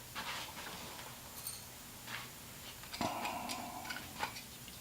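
Faint, scattered light ticks and taps of small metal parts being handled during reassembly of a transfer case selector fork assembly.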